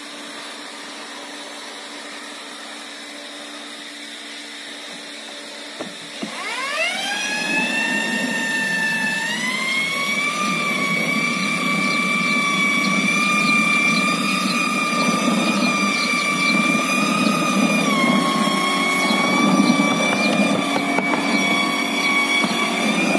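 Hand-held electric paddle mixer starting up about six seconds in, its whine rising and then running at a steady high pitch as it churns foam into cement slurry in a steel drum for foam-concrete blocks. A steady low hum underlies it throughout.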